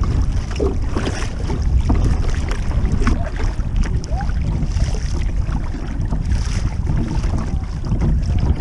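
Strong wind buffeting the microphone in a heavy, unbroken low rumble, with scattered small splashes and knocks of water against the kayak.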